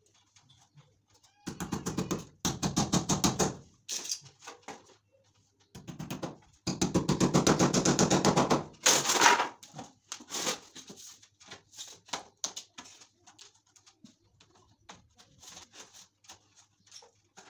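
Hammer tapping nails through a PVC wall panel in two quick runs of rapid taps, the second louder, followed by scattered lighter knocks.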